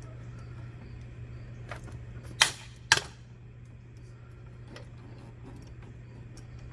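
Two sharp knocks about half a second apart, with a few lighter clicks before and after, over a steady low hum.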